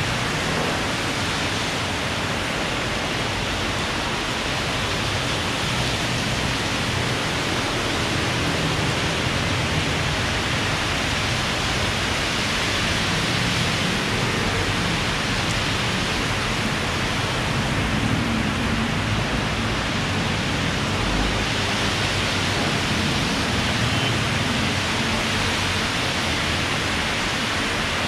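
Heavy rain falling in a steady, dense hiss that does not let up.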